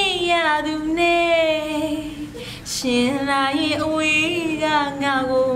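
A woman singing a parody song unaccompanied, holding long notes that waver and slide in pitch, with a quick breath about two and a half seconds in.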